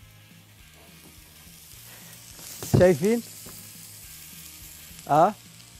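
Chopped red onion in olive oil sizzling gently in a skillet, a low, even hiss that swells slightly about two seconds in. The onion is only being wilted, softened and steamed a little, not fried or browned.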